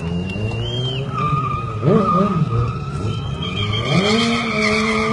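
Motorcycle tyre squealing steadily as the bike spins or skids on the road, with the engine revved up about four seconds in and held high.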